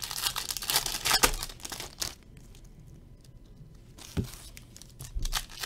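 A stack of glossy baseball cards being flipped and slid against one another in the hands: about two seconds of quick rustling and snapping, a lull, a single tap a little after four seconds, and more shuffling near the end.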